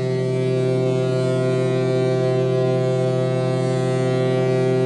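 Ship's horn of the passenger liner KM Tidar sounding one long, steady, deep blast.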